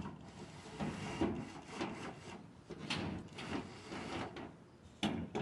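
Cordless drill driving screws into the thin steel wall panel of a portable shed in short, irregular bursts, with a few sharp knocks from the sheet metal.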